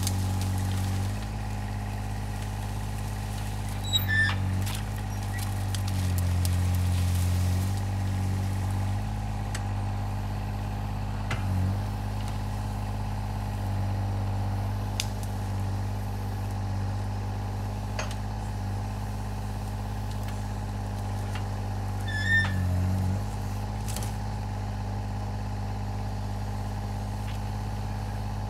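The Alstor 834 forwarder's 3-cylinder diesel engine runs steadily while its hydraulic crane works, the engine note shifting slightly under changing load several times. A few sharp cracks of branches in the grapple stand out over it.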